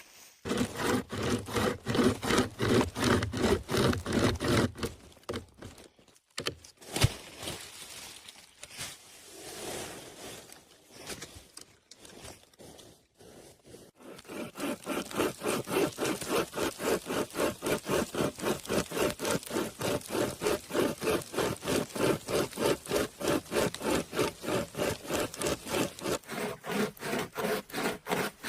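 Hand saw cutting wood in steady back-and-forth strokes, about three a second. There is a quieter pause of several seconds in the middle before the sawing resumes.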